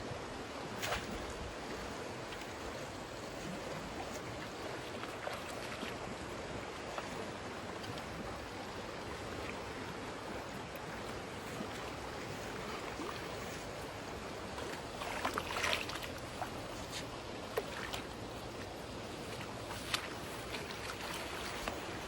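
Steady water noise with a few short, sharp splashes: one about a second in, a cluster about two-thirds of the way through, and two more near the end.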